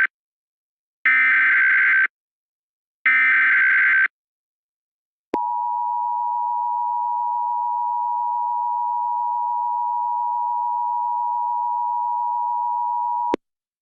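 Emergency Alert System alert opening: the SAME digital header's screeching data bursts, the end of one and then two more, each about a second long and a second apart. After a short gap comes the steady two-tone EAS attention signal, held for about eight seconds and cutting off sharply.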